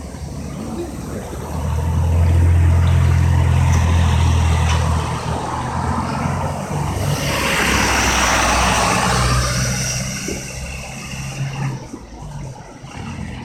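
Cars passing on a wet road: a low engine drone, then about seven seconds in a car passes with its tyres hissing on the wet surface, swelling and fading over about three seconds.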